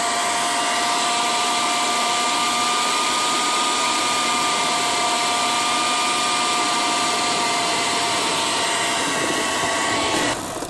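Food processor motor running steadily with a whine, its blade cutting cold butter and flour into crumbly pie pastry dough as water is added. The motor cuts off near the end.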